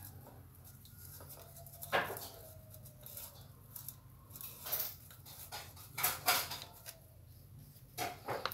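Scattered metallic clicks and knocks of a long-shafted screwdriver working the screws on top of a small engine, the loudest knock about two seconds in and a few more around five, six and eight seconds.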